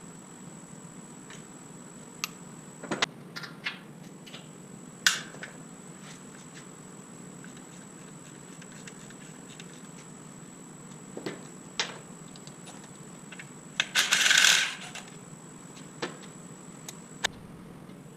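Scattered metallic clinks and knocks of steel transmission parts and tools being handled, with a longer, louder rattling clatter about 14 seconds in.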